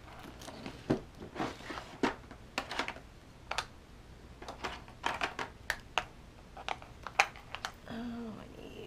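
Small craft supplies (a wooden-handled stamp, ink pads) being handled and set down on a plastic cutting mat beside a clear vinyl pouch: irregular clicks and taps, a few every second.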